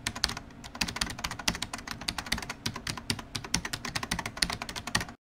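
Dense, rapid, irregular clicking sound effect, like fast typing on a keyboard, cutting off suddenly near the end.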